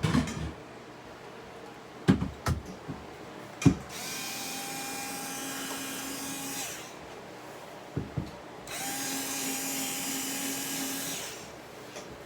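Power drill running in two steady bursts of about two and a half seconds each, its motor whine holding an even pitch. A few sharp knocks come before the first run.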